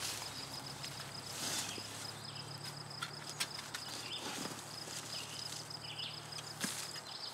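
Quiet outdoor ambience: a steady high insect trill over a faint low hum, with a few soft scuffs and knocks scattered through.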